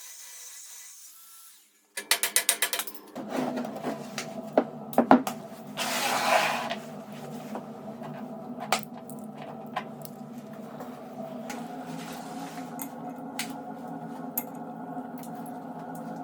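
A small power tool's electric motor starts after a quick run of clicks and runs steadily, with a few sharp knocks and a short hissing burst of cutting or grinding about six seconds in.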